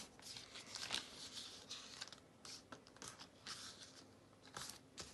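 A sheet of paper being folded by hand into accordion pleats: faint, irregular rustles and short crisp scrapes as the folds are squeezed together and creased flat.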